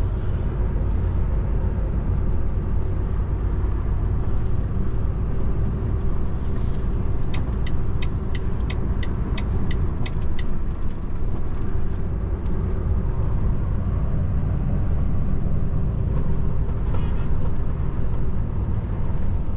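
Steady low engine and road rumble inside the cab of a Volvo truck on the move. Around the middle, a quick run of about ten even ticks lasts some three seconds.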